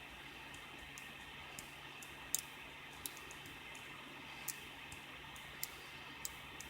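Faint, irregular metallic clicks of a pick and tension wrench working the pins inside a Master padlock, with a single click every second or so.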